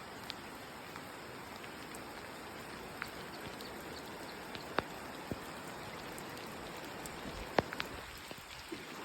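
Steady rain falling, with single heavy drops now and then striking close by as sharp ticks, the loudest about three-quarters of the way through.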